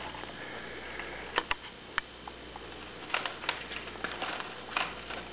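A toddler eating a cookie in a high chair: scattered light taps and clicks of small fingers on the plastic tray as he picks up crumbs, along with chewing.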